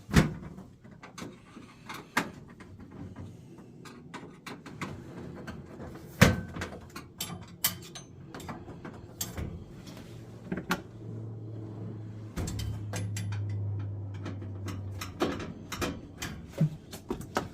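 Scattered knocks and clicks of a boiler's casing and panels being handled and refitted, with a low steady hum for about four seconds past the middle.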